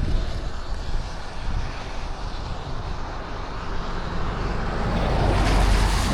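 Steady low roar of wind around the vehicle and microphone under a tornadic storm, swelling louder about five seconds in.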